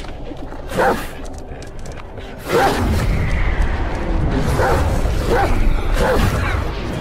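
Large black hound barking deeply, about five barks. One comes near the start, and the louder rest come from about two and a half seconds in, over a low rumble.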